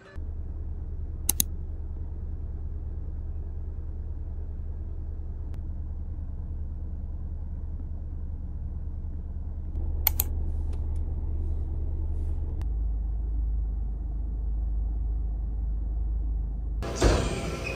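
A steady low rumble that drops lower about twelve and a half seconds in, with two sharp clicks, one about a second in and one about ten seconds in, and a louder noisy sound near the end.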